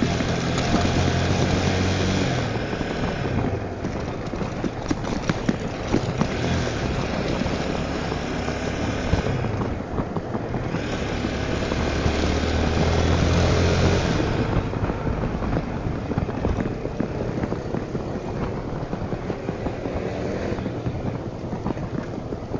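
Tornado 250 motorcycle engine under way, with wind and road noise throughout. The engine pulls hardest twice, in the first two seconds and again about twelve to fourteen seconds in, and eases off in between and toward the end.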